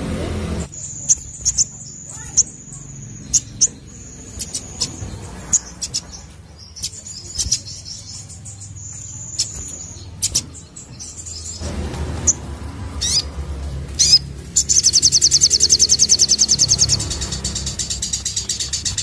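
Crimson sunbird (sogon) singing: thin, high whistled notes, some held for about a second, mixed with sharp chips. About fifteen seconds in it breaks into a loud, very fast trill, which carries on more softly to the end. A low rumble runs underneath.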